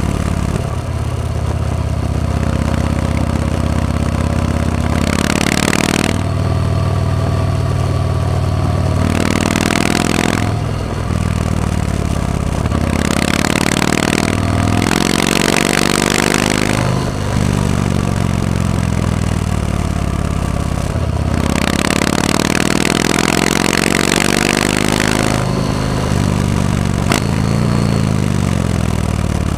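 Yamaha MT-01's big air-cooled V-twin engine running under way, its revs rising and falling over and over as the bike accelerates and slows through the bends. Several stretches of rushing wind noise on the microphone come and go over the engine.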